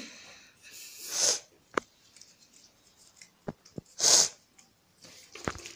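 Two short, sharp sniffs through the nose, about three seconds apart. A few light clicks and taps come between them, from hands handling dough balls on the table.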